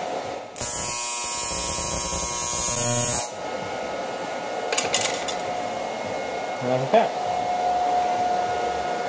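TIG welding arc on an aluminum plate: a loud buzzing hiss that strikes about half a second in and cuts off sharply after nearly three seconds, over a steady hum. A few light clicks follow.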